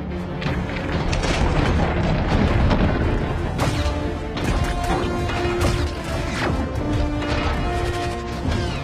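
Dramatic film score with held notes, over heavy booms and crashing impacts.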